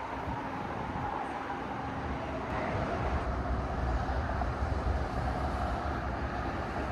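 Train running by, a steady rumble with a faint whine slowly dropping in pitch; the low rumble grows louder about halfway through.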